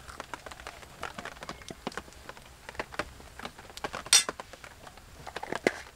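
Cookware and utensils being handled: scattered light taps and clicks, then one loud, sharp clink a little after four seconds in.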